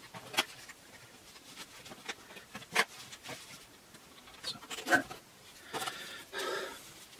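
Scattered sharp clicks and taps of small wooden canvas keys being pushed and wiggled into the corner slots of a canvas stretcher frame, with a longer stretch of handling rustle about six seconds in.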